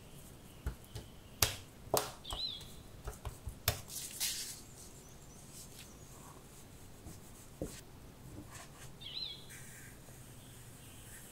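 Clicks, knocks and a scrape of a silicone spatula and plastic dough scraper working mochi dough on a silicone mat, busiest in the first four seconds. A short bird chirp sounds twice, a few seconds apart.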